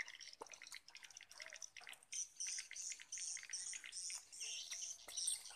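Faint outdoor chorus of insects and birds chirping in short repeated phrases, with a few scattered light clicks.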